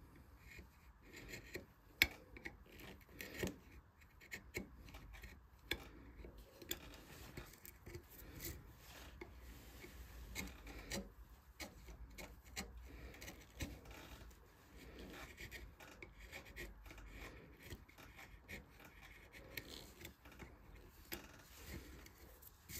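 Carving tool cutting and scraping into wood in short, irregular strokes, with occasional sharp clicks.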